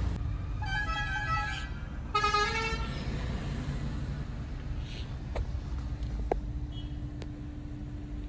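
Vehicle horns honking twice, each blast about a second long, the second at a lower pitch, over the low rumble of cars on the road.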